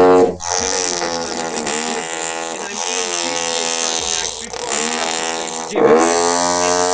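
A voice distorted by a 'hammer drill' sound effect into a loud, buzzing drone. Its pitch bends up and down with the talking, and it breaks off briefly twice.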